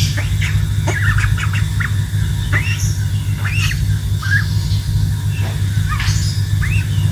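Young white domestic duck peeping and squawking in short calls that rise and fall in pitch, scattered irregularly, over a loud steady low rumble.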